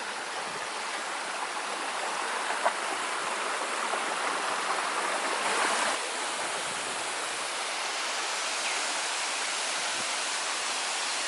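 Waterfall and river water rushing steadily, a constant roar of falling water that dips slightly about six seconds in.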